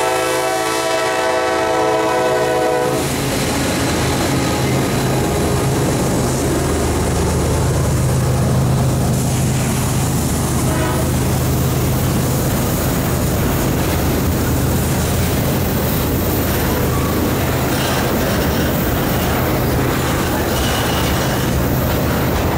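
Horn of a Kansas City Southern GE ES44AC diesel locomotive sounding a chord and cutting off about three seconds in, as the lead locomotives pass close by. After it, double-stack intermodal well cars roll past with a steady rumble and clatter of wheels on the rails.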